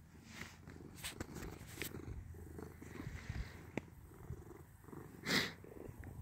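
Domestic cat purring steadily while being stroked by hand, with a brief louder noise about five seconds in.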